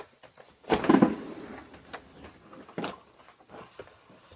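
A window being opened: a loud scrape about a second in, followed by a few sharp clicks and knocks.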